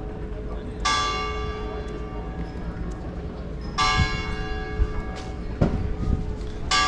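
A large church bell tolling: three strikes about three seconds apart, each ringing on and slowly fading before the next.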